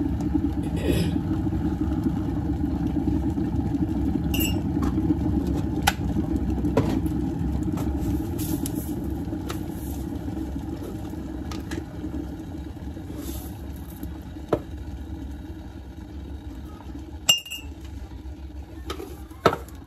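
Glass electric kettle at the boil, a steady rumble that dies away over the second half as it switches off and settles. Several sharp clinks of the spoon, mug and coffee tin sound over it.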